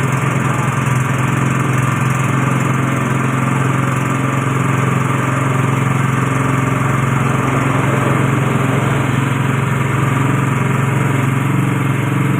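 Coconut-milk press machine's motor running steadily at constant speed, a loud even hum with no changes.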